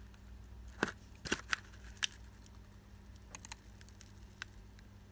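Light metal clicks and taps from a steel vernier caliper and a vane of a BMW M57 power-steering pump rotor knocking together while the vane's protrusion is measured: four sharp clicks in the first two seconds, then a few fainter ones, over a faint steady low hum.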